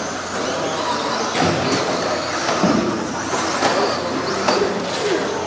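RC stadium trucks running laps on a dirt track: a steady mix of motor whine and tyre noise, with several short rising and falling whines as the trucks speed up and slow down, and a few sharp knocks.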